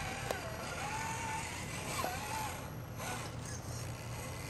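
Axial SCX RC rock crawler's electric motor whining, its pitch rising and falling with the throttle as it climbs bare rock. The whine fades out about halfway through, and there are two sharp clicks.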